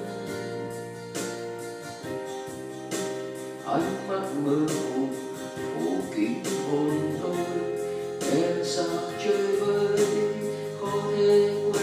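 A man singing a slow Vietnamese ballad into a microphone over amplified keyboard backing music with a steady, even beat.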